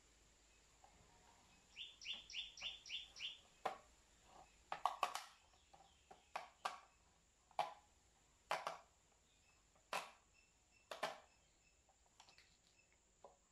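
Sharp plastic clicks and knocks, roughly one a second and loudest about five seconds in, as the glass and white plastic housing of a removed Toyota Corolla folding side mirror are handled and pressed into place. About two seconds in, a bird gives a quick run of about seven high chirps.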